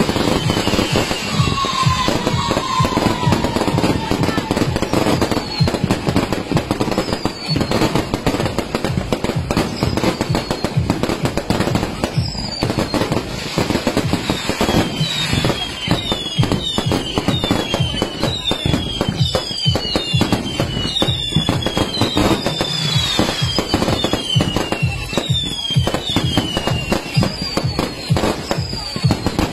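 Fireworks going off without a break: dense crackling and popping, with many short whistles that fall in pitch, crowding together in the second half.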